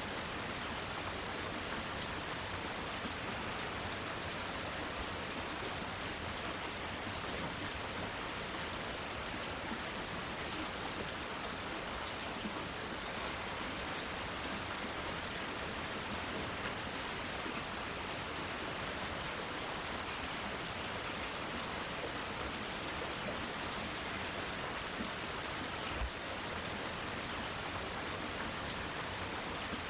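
Steady rain falling on plants and leaves, an even hiss with scattered drips. One soft low thump about 26 seconds in.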